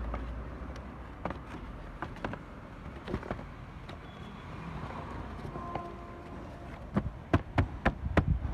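Scattered light clicks and knocks of parts being handled, then a quick run of sharper, louder clicks near the end, over a low steady rumble.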